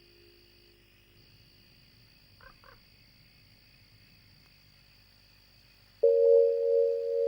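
Background music: after a near-silent stretch broken by two faint short chirps about two and a half seconds in, a loud sustained singing-bowl-like tone starts suddenly about six seconds in and holds steady.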